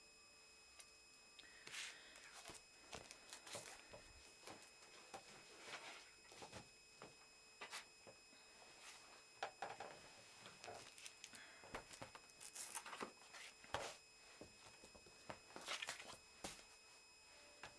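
Faint, irregular scratching, rustling and light tapping, as of small objects or paper being handled.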